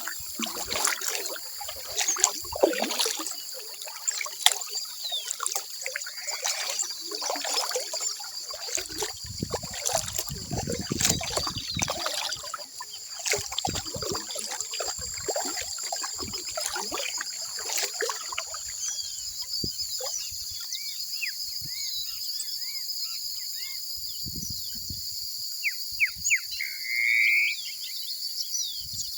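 Birds chirping at dawn over a steady, high trill of insects, with water dripping and splashing for the first two-thirds. One louder bird call comes near the end.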